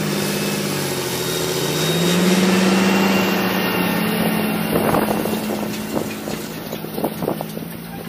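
John Deere tractor's diesel engine running under load as it drives close past, pulling a field cultivator. The engine note rises and is loudest about two to three seconds in. From about five seconds in come scattered cracks and clatter as the cultivator's shanks tear through the soil.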